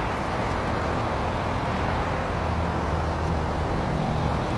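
Steady rushing of floodwater pouring away down a cleared street drain, with the low steady hum of a vehicle engine underneath.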